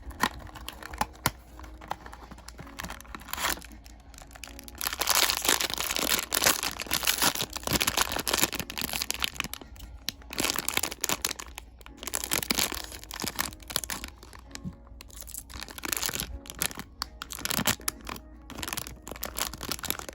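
Blind-box packaging being opened by hand: a few sharp clicks at first, then a long stretch of tearing and crinkling from about five seconds in, followed by shorter bursts of crinkling.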